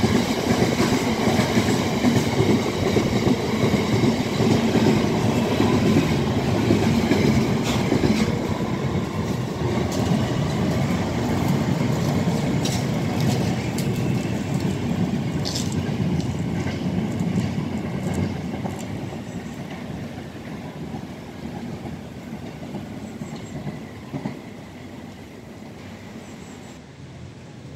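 Freight train of intermodal wagons passing fast: a loud, dense rumble of wagon wheels on the rails with scattered sharp clacks. It fades steadily over the last ten seconds as the train runs away into the distance.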